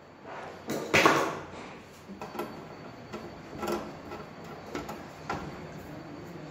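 A hand screwdriver driving screws into the sheet-metal cover of an inverter cabinet. There is a sharp knock about a second in, then scattered light clicks and scrapes of the screwdriver on the screws and metal.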